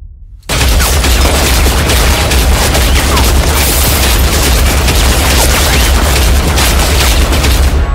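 Sustained automatic gunfire, a dense unbroken fusillade with heavy booming low end. It starts about half a second in and cuts off suddenly at the end.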